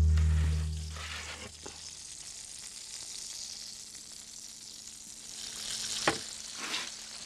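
Hot fat and juices sizzling and crackling in a roasting tray around a freshly roasted chicken, with a sharp click about six seconds in.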